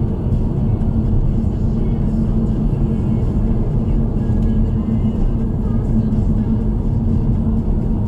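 Steady low rumble of a car driving along a road, tyre and engine noise heard from inside the car.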